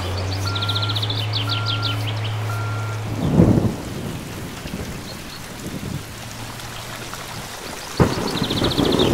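Rain-and-thunderstorm sound effect: steady falling rain, with a thunderclap rumbling about three seconds in and a sharp crack of thunder near the end. Short high chirping trills sound near the start and again near the end.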